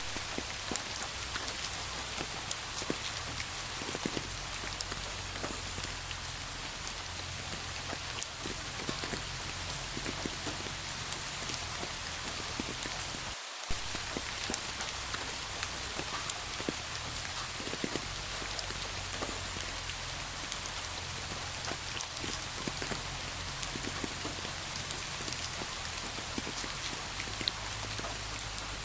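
Steady rain falling on a surface, with many individual drops ticking through the even hiss. There is a momentary break about halfway through.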